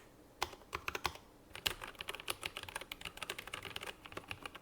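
Typing on a KEMOVE K98SE mechanical keyboard with pre-lubed linear red switches: quick runs of sharp clicks, a few scattered strokes in the first second and a half, then fast continuous typing.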